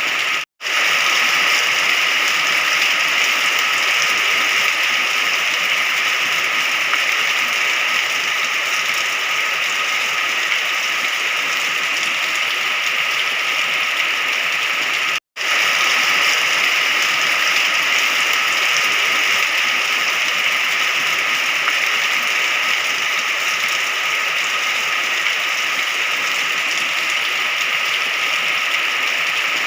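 Steady rain falling, a dense even hiss. It cuts out to silence for an instant twice, about half a second in and about halfway through.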